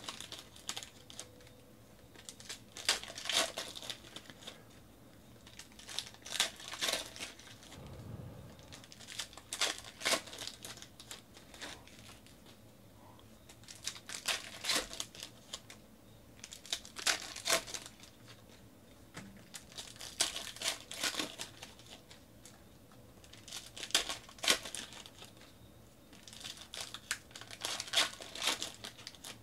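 2019-20 Panini NBA Hoops basketball card pack wrappers crinkling and tearing open as packs are opened, with cards handled between the hands. The crackling comes in short bursts every three to four seconds.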